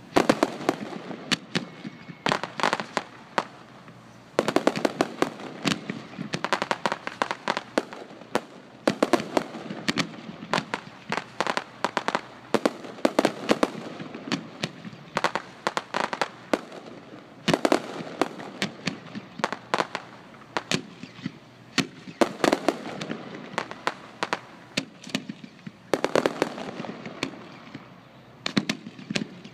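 Fireworks display: rapid volleys of bangs and crackles from bursting aerial shells, coming in clusters every couple of seconds with short lulls between them.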